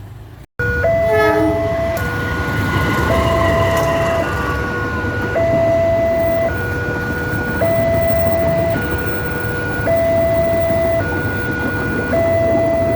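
Railway level-crossing warning siren sounding a two-tone electronic alarm that switches between a higher and a lower pitch about once a second, starting abruptly about half a second in. A low rumble, typical of a train on the line, runs underneath.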